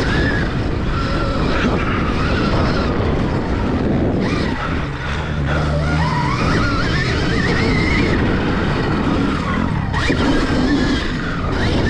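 Motocross bike engine heard from on the bike as it is ridden round the track, the pitch rising and falling with the throttle: it dips briefly about four seconds in, then climbs steadily for a couple of seconds mid-way. Wind rushes over the microphone throughout.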